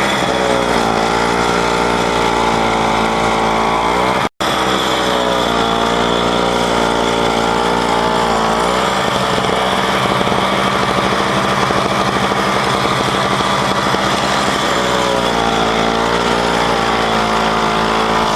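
John Deere snowblower engine running steadily, its pitch dipping and recovering several times.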